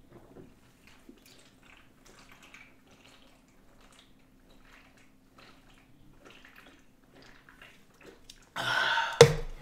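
Two men chugging beer from cans: faint, irregular gulping and swallowing. Near the end a loud vocal exhale comes in, with a single sharp click in the middle of it.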